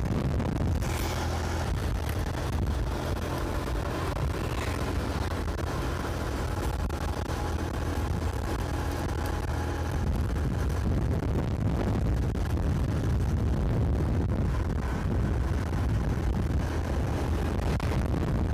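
Motorcycle running along a road, a steady low rumble of engine and road noise.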